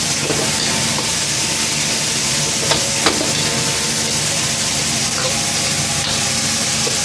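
Meat and vegetables sizzling and hissing in a hot wok over a gas burner, with a metal spatula clinking against the wok twice about three seconds in.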